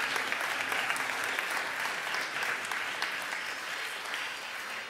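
Audience applauding, the clapping slowly tapering off.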